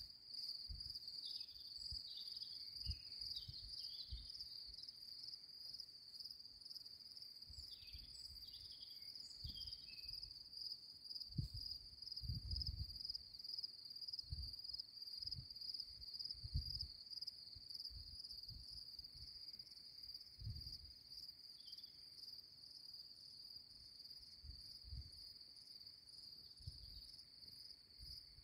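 Crickets trilling in one steady, unbroken high-pitched band, with a few short falling calls from another animal in the first ten seconds and once again later, and scattered low thumps on the microphone.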